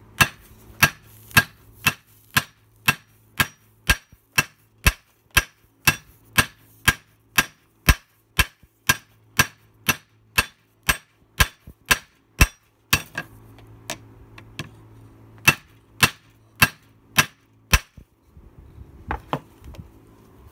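Hand hammer striking a red-hot metal bar on the anvil face of a bench vise: steady, even blows about two a second, each with a short metallic ring. The blows stop about two-thirds of the way through, then a short run of a few more follows.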